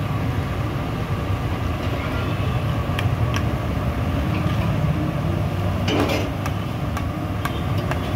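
Medu vadas frying in a large kadhai of hot oil over a steady low rumble, with a few sharp metallic clinks and a scrape of the metal skimmer against the pan, the biggest about six seconds in.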